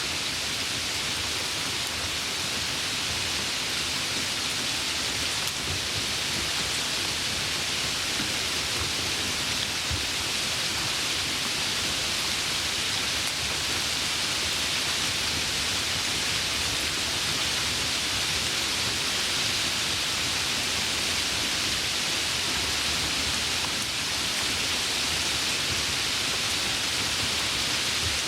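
Light rain falling steadily, an even hiss of raindrops with no change in strength.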